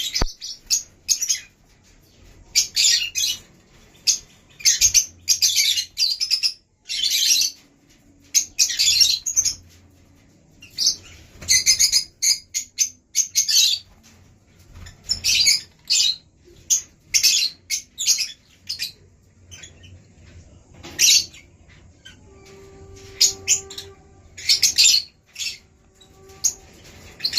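Lutino Fischer's lovebird chicks calling in repeated bursts of shrill, high chirps, with short pauses between the bursts.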